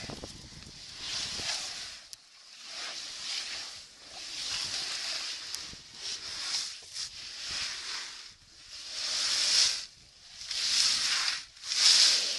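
An African elephant's hide rubbing and scraping against the trail camera, in repeated swells of rasping noise about once a second, the loudest near the end.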